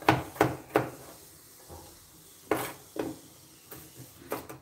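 Kitchen knife chopping a potato on a plastic cutting board: three quick chops, a pause, two or three more, then lighter taps near the end.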